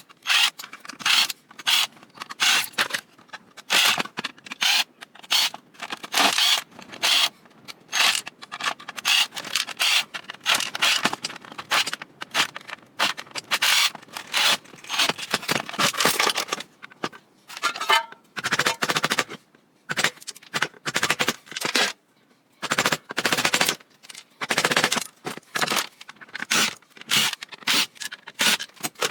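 Rapid, irregular clatter and scraping of an old Cuisinart food processor's parts as it is taken apart for scrap.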